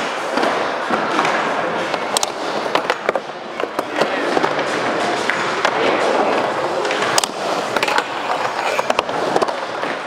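Skateboard wheels rolling on skatepark ramps and banks, with several sharp clacks of the board hitting and landing, the clearest about two, three, seven and nine seconds in.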